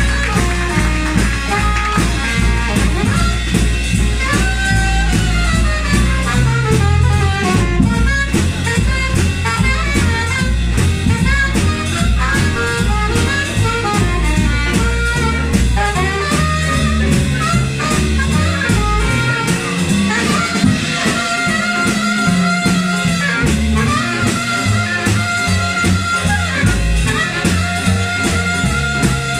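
Live jazz band playing: a horn solo line over bass, drums and cymbals.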